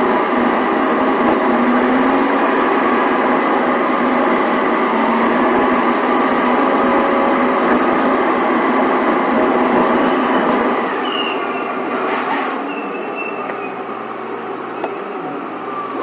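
Steady traffic and road noise echoing in a road tunnel, heard from inside a car following a lorry. It eases off a little about eleven seconds in.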